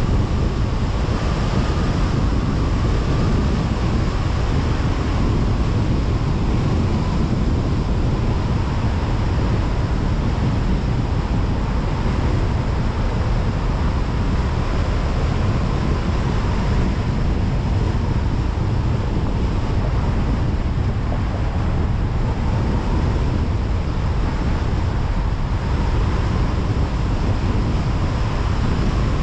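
Steady road noise of a car driving: an even rumble of tyres and wind, with a faint whine that drifts slightly in pitch.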